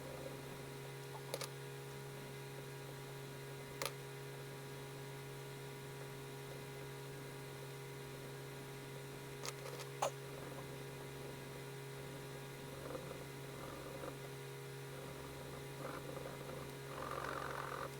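A steady electrical hum throughout, with a few sharp clicks in the first half. From about two-thirds in, pencil strokes scratch on paper in short patches, loudest near the end.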